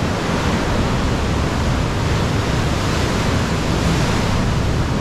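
Ocean surf breaking and washing into the mouth of a sea cave: a steady, loud rush of water with no separate events.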